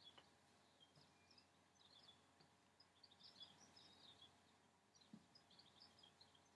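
Near silence: quiet room tone with faint, scattered high bird chirps.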